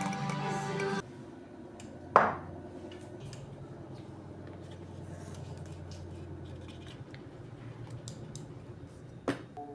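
Background music stops about a second in, then kitchen clatter: a sharp, ringing clink of dishes or a pan about two seconds in and a lighter clink near the end, over a faint low hum.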